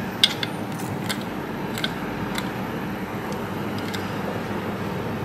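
Several small sharp clicks of a hand tool working on a circuit board, the loudest just after the start and the rest spread irregularly, over a steady background hum.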